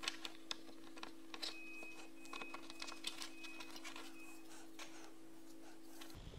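Irregular plastic clicks, taps and rattles as a GoPro Hero 3 camera is handled and pressed into its plastic frame mount.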